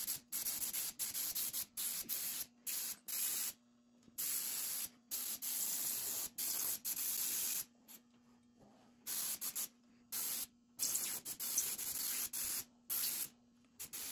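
Compressed-air paint spray gun hissing in repeated short bursts as the trigger is pulled and released, spraying paint onto cardboard. There is a longer pause about eight seconds in.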